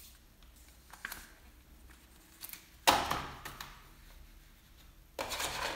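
Paper leaflets and cardboard packaging being handled: a light tap about a second in, a sharp slap about three seconds in as the leaflets are set down on the table, and a short scraping rustle near the end.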